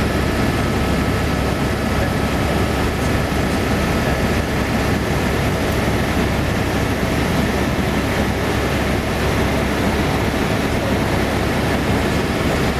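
Helicopter cabin noise from the rotor and engine: a loud, steady rushing drone strong in the low end, with faint steady tones above it. It starts and stops abruptly.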